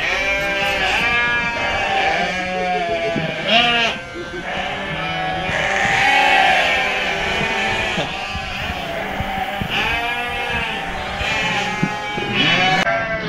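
A large shed of penned sheep and goats bleating, many calls overlapping without a break.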